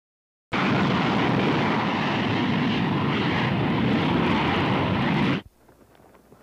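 Eight jet engines of a B-52 bomber giving a loud, steady rush of jet noise. It starts suddenly about half a second in and cuts off abruptly about a second before the end.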